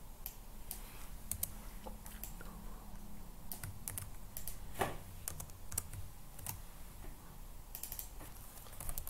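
Computer keyboard and mouse clicks: scattered single taps, with a quick run of keystrokes near the end, as text is selected, copied and pasted.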